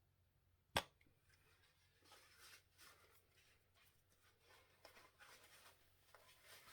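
A single sharp click about a second in, then faint scratching and rustling of hands handling paint cups and tools.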